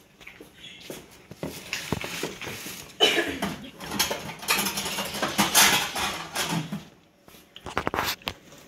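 Kitchen clatter from dishes and utensils being handled: scattered clicks and knocks, with a denser, louder spell of clattering and rustling in the middle.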